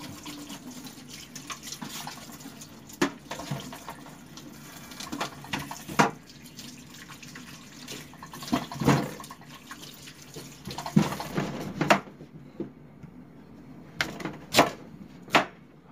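Tap water running into a stainless steel sink as peeled sweet potatoes are rinsed under it, with a few knocks and clatters. The water stops about three-quarters of the way through, and a few sharp knife cuts follow as the sweet potato is sliced.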